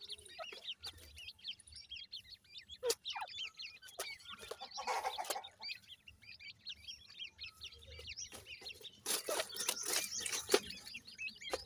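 Grey francolin (dakhni teetar) chicks peeping, a steady run of many short, high chirps overlapping one another. Two bursts of rustling noise come in, one around the middle and a louder one near the end.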